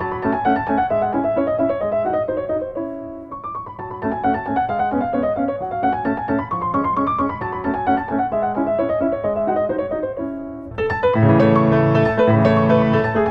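Background piano music playing quick runs of notes that rise and fall; about eleven seconds in it swells into a fuller, louder passage.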